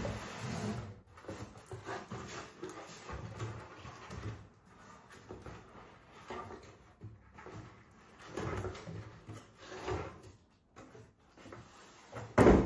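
Bicycle shipping box and packaging being handled: irregular rubbing and scraping with scattered knocks, and one loud knock near the end.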